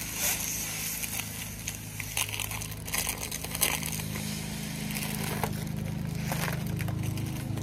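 Rose-gold foil balloon crinkling and crackling as it is blown up by mouth and squeezed into shape, with irregular sharp crinkles throughout. A low steady hum runs underneath.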